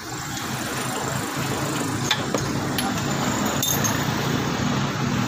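A motor vehicle engine running steadily in the background, with a few sharp clicks of hand tools on the motorcycle's valve gear about two, three and nearly four seconds in.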